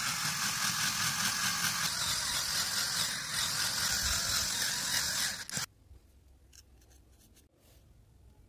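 Electric drill running as a twist bit bores into a plastic phone-charger casing, a loud steady whir that cuts off abruptly about five and a half seconds in. A few faint clicks follow.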